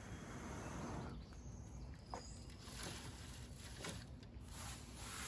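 A person blowing into a smoking pine-needle tinder bundle to bring the ember in charred punkwood up to flame: one long breathy hiss about a second long, then several shorter blows, with light rustling and crackling of the dry needles.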